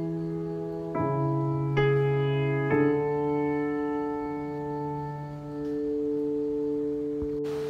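Background music: slow keyboard chords, changing a few times in the first three seconds, then one long held chord.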